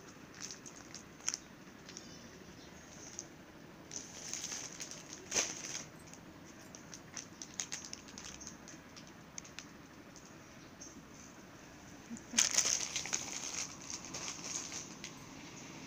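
Clear plastic saree wrappers crinkling as the packets are handled and shifted, in short bursts: a cluster about four to six seconds in and a louder one starting about twelve seconds in.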